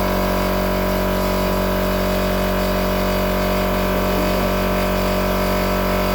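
A motor running steadily in the background: an even hum with several fixed tones that does not change.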